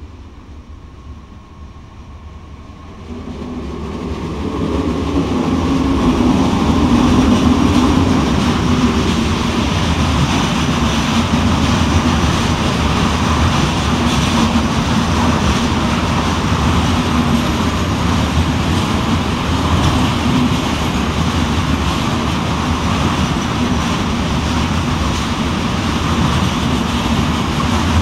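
Freight train passing close by: it grows louder over the first few seconds as the locomotive comes in. Then a long string of wagons carrying semi-trailers rolls past with a steady, loud rumble of wheels on rail.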